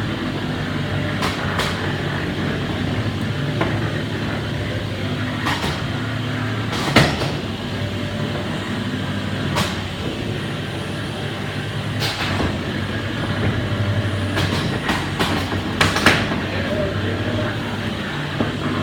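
Beetleweight combat robots fighting: a steady electric motor hum under a series of sharp metal impacts, the loudest about seven seconds in and a quick cluster of hits near the end.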